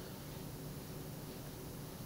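Quiet room tone: a faint, steady hiss with a low hum underneath, and no distinct event.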